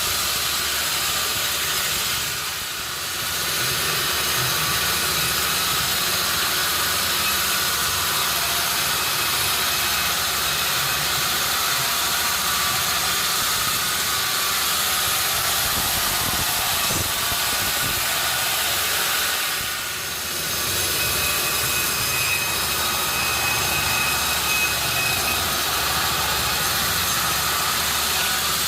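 Sawmill running steadily with a loud, even hiss topped by high whining tones, dipping briefly twice.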